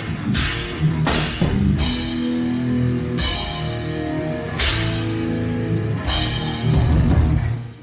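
Heavy metal band playing live: distorted electric guitars, bass and drum kit. The song winds down into a few long held chords, each struck with a cymbal crash about every second and a half, and the music cuts off near the end.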